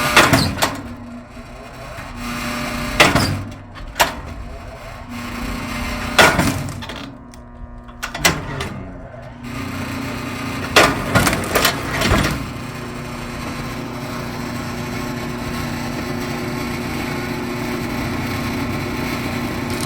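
Engine-driven hydraulic log splitter running steadily while logs crack and split apart in a string of sharp snaps and knocks over the first twelve seconds or so. After that only the splitter's engine runs on evenly.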